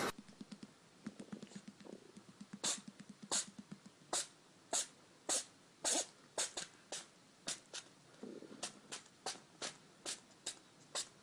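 A small animal sneezing over and over: a long run of short, sharp sneezes about two a second, after a couple of seconds of faint quick puffs.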